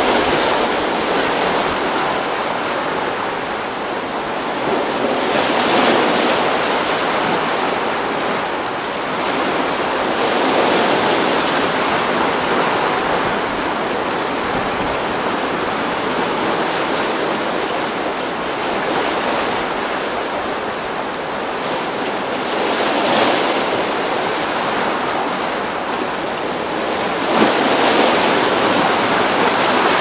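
Sea waves close up: a continuous rush of churning surf that swells louder every few seconds, most sharply near the end.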